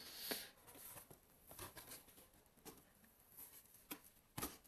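Cardboard box flaps being opened by hand: faint rustling with a few light, scattered taps.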